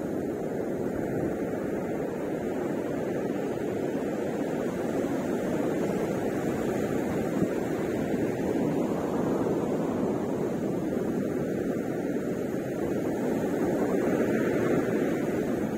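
Sea surf breaking on a sandy beach: a steady rushing wash of waves that swells and eases slowly, a little louder near the end.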